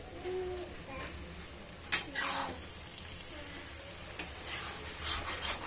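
A spatula stirring fried black pomfret pieces through thick masala in a kadhai, over a light sizzle. The scraping comes in bursts, and one sharp knock of the spatula on the pan sounds about two seconds in.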